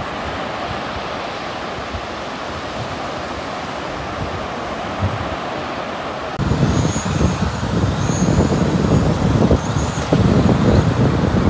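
Wind blowing across the microphone over steady surf noise; about six seconds in it turns to a louder, fluttering low rumble of wind buffeting.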